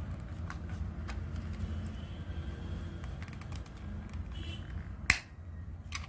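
Small plastic clicks and taps as a screwdriver works the battery-cover screw on a toy RC car's plastic remote control, with one sharp, louder click about five seconds in. A steady low hum sits underneath.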